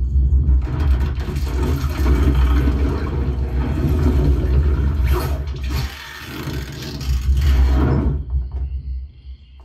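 A Dolby demo trailer's sound effects played through a Sony HT-S40R 5.1 soundbar system: a deep bass rumble with whooshing swells that fades away near the end.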